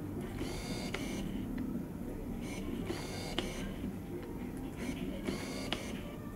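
Autofocus motor of a Tamron AF 70-300mm zoom lens, worked through a lens adapter, whirring in three short bursts with small clicks as the lens hunts back and forth for focus.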